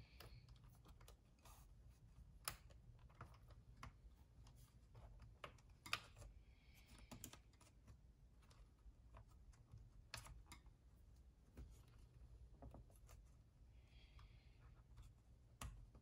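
Near silence with faint, scattered small clicks and taps, irregularly spaced, as a laptop DC power jack and its wire are pulled and worked free from the laptop's plastic and metal chassis by hand. A faint steady low hum lies underneath.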